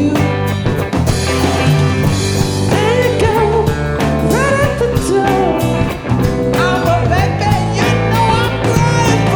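A band playing bluesy rock live: guitar and drums over a steady bass line, with a lead melody that slides up and down in pitch.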